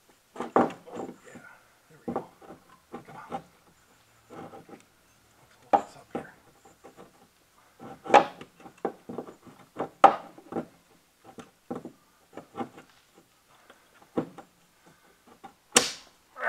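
Irregular knocks, clunks and scrapes of an alternator being twisted and worked against the engine and subframe while it is forced through a tight opening, a stuck part that will not come out. The sharpest knock comes near the end.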